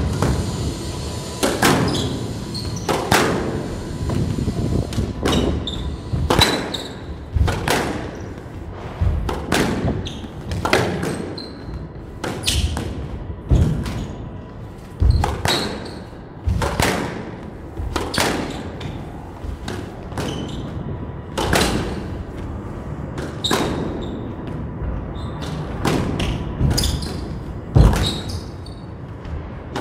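Squash rally: the ball is struck by rackets and hits the court walls, making sharp knocks about once a second.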